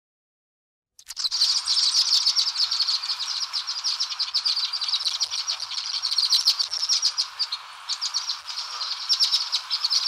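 Songbird song of rapid rattle-like trills, starting about a second in and running on in dense, fast-repeating notes.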